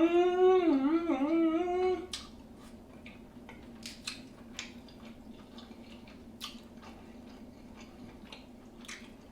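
A drawn-out hummed "mmm" of enjoyment, about two seconds long, whose pitch rises and then wobbles twice. After it come scattered small clicks and smacks of chewing and eating seafood.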